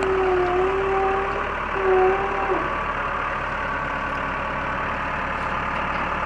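Backhoe's diesel engine running steadily. For the first two and a half seconds a sustained whine sits over it, breaks briefly, then drops away.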